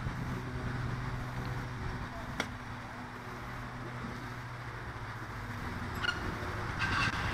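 A steady low mechanical hum that fades after about five seconds, over wind noise on the microphone, with a single sharp click about two and a half seconds in and a few short high chirps near the end.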